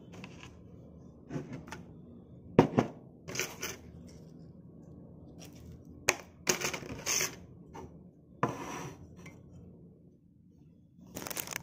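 Clothes being handled and shaken out: a series of brief rustling swishes and snaps of fabric, with a few sharp clicks among them.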